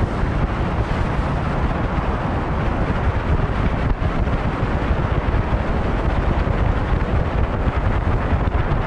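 Steady wind buffeting the microphone of a fishing boat running at speed, over a 60 hp outboard motor at cruising throttle and the splash of its wake.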